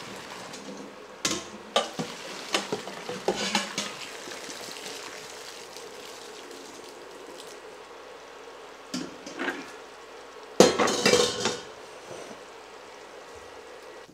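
Hot pasta water pouring from a pot into a strainer in the sink, then stainless steel pots and a perforated pasta insert knocking and clattering against each other and the sink. The loudest clatter comes about ten and a half seconds in.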